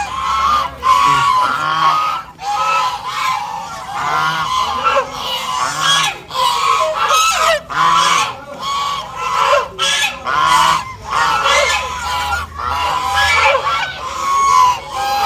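A flock of domestic geese honking, many overlapping calls with no break.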